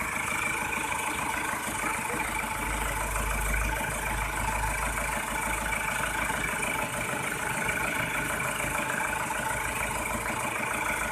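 Rebuilt Isuzu Panther diesel engine running steadily at idle on its first runs after an overhaul, with a fast, even clatter. A deeper rumble swells for a couple of seconds early in the run and then fades.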